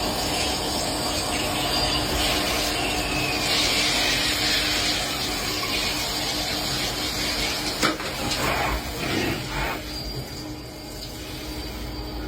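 CNC machine tool running: a steady hum under a loud, noisy wash, with a falling whine a few seconds in and a sharp click about two-thirds through.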